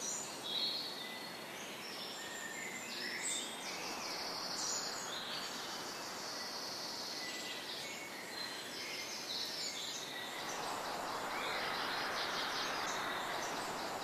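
Several songbirds singing and chirping over a steady outdoor background hiss.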